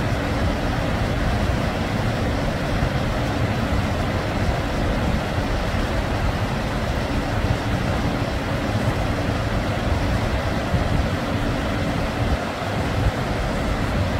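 Water pouring over a low concrete river weir, a steady even rush with no break, over a faint low hum.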